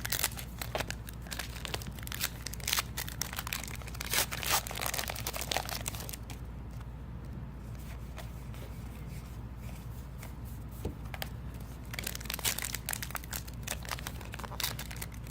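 Trading card pack wrappers being torn open and crinkled, with cards being handled. It comes in bursts of crackling, busiest in the first few seconds and again near the end, over a steady low hum.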